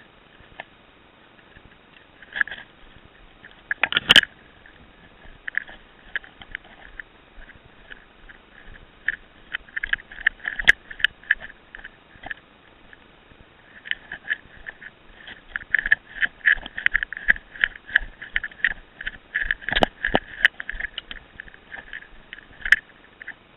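Irregular muffled knocks, taps and rustles of a person moving and running, footsteps and gear, heard through a waterproof camera housing that dulls the sound. The taps come thickest in the second half, with a couple of sharper cracks about four seconds in and near the end.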